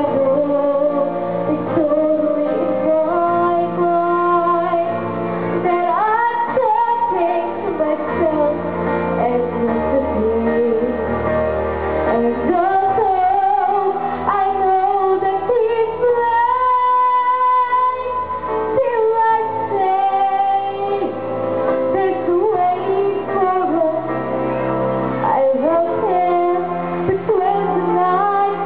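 A young girl singing a slow ballad solo into a microphone, amplified over instrumental accompaniment, holding long notes with pitch glides.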